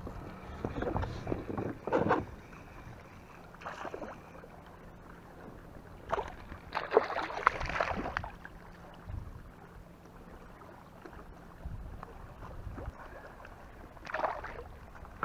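Irregular rustling and knocking as gear and the catch are handled on a fishing kayak, in short bursts with a longer busy stretch around the middle, over a faint steady low hum that stops near the end.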